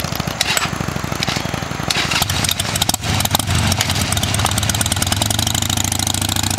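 Motorcycle engine idling close by: a steady, rapid pulsing.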